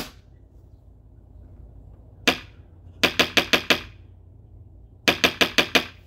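Wooden woodpecker door knocker rapping on its mounting board: one knock, then two quick runs of about six knocks each.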